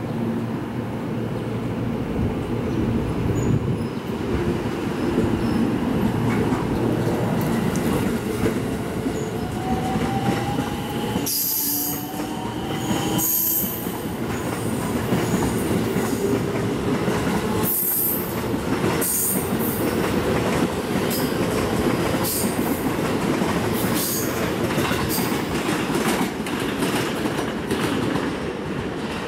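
JR West 223 series electric train pulling away and running past close by: the traction motors' whine rises in pitch as it gathers speed, over the rumble of the cars, with several sharp clacks of wheels over rail joints.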